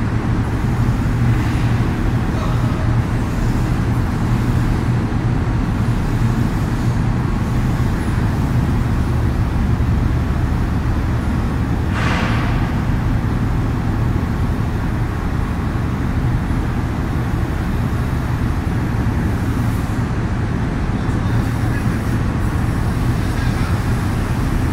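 Volvo EC300DL tracked hydraulic excavator's diesel engine running steadily as the machine tracks and slews under its own power. A short hiss about halfway through.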